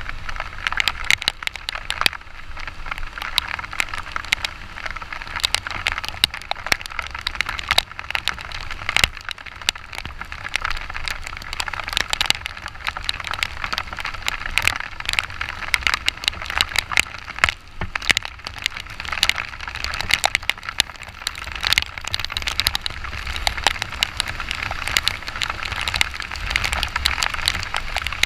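Heavy rain striking the camera up close while riding a motorcycle: a dense, irregular crackle of raindrop hits over a steady low rumble.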